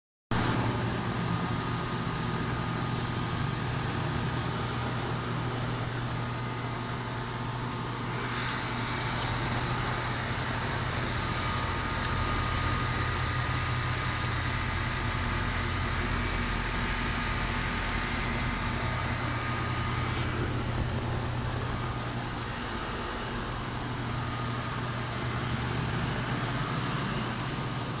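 Goodman central air conditioner condenser unit running: a steady low compressor hum under the rushing air of its outdoor fan, with a faint steady whine.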